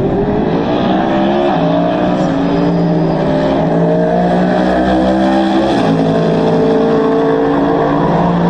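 GT3 race car engine accelerating hard through the gears: the pitch climbs, drops at an upshift about a second and a half in, climbs steadily again and drops at a second upshift near six seconds.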